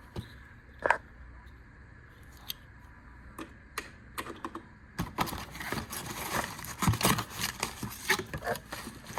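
Packaging being opened by hand: a few scattered clicks and taps, then from about five seconds in a steady run of crinkling and tearing.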